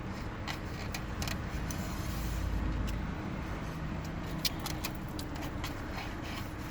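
Light scattered clicks and taps of eating and handling a takeout food container, one sharper click about four and a half seconds in, over a steady low rumble.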